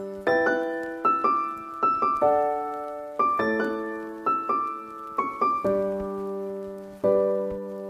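Background piano music: slow, gentle notes and chords, each struck and left to ring and fade, about one a second.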